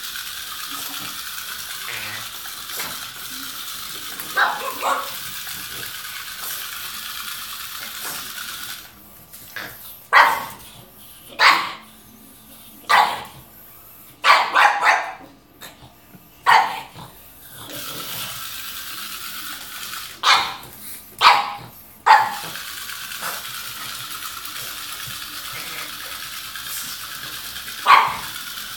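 Pug barking in about a dozen short, sharp barks that come in clusters, most of them in the middle stretch.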